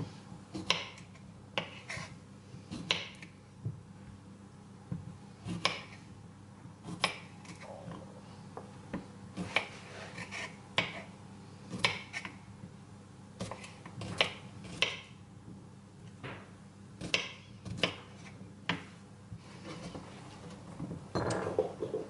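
Kitchen knife slicing small cucumbers on a wooden cutting board: a string of crisp, irregular chops, roughly one a second, some in quick pairs, with a longer scrape near the end.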